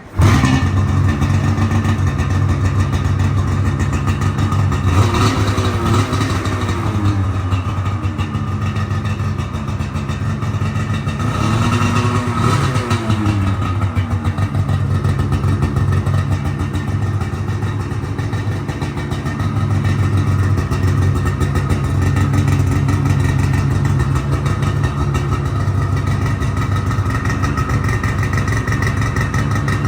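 Polaris 850 Patriot two-stroke twin snowmobile engine running through a new SLP aftermarket silencer, holding a steady idle with two short throttle blips, about five and twelve seconds in.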